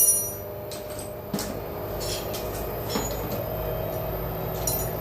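LG front-loading washer's drum spinning at top speed, about 1000 RPM, on freshly replaced drum bearings, with a steady machine hum. A short loud clatter at the very start and a few light knocks later.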